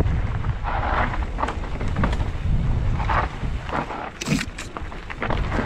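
Mountain bike descending a dirt trail: a steady low wind rumble on the microphone, with tyres crunching over dirt and loose stones and the bike rattling and knocking over bumps, one sharp knock near the end.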